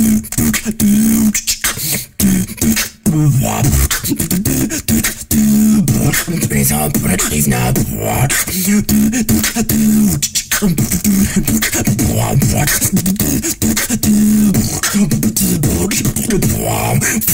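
Vocal beatboxing: a dense rhythm of mouth-made drum sounds (kicks, snares, hi-hats) over a pitched vocal bass line, with a couple of brief breaks early on.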